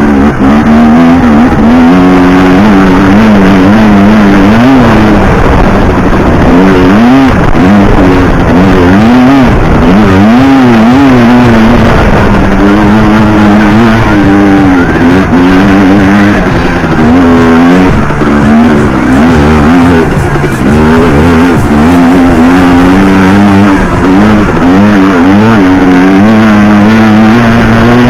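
Yamaha Banshee two-stroke twin-cylinder quad engine, loud, revving up and down over and over as the ATV is ridden hard off-road.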